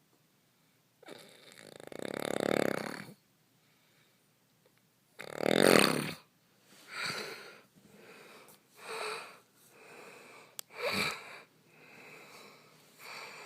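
Snoring in uneven breaths: a long snore about a second in, the loudest one around five seconds in, then shorter snores roughly every two seconds with fainter breaths between.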